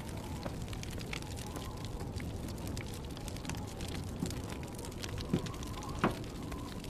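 Campfire crackling, with many small scattered pops over a steady low background, and a couple of sharper pops near the end.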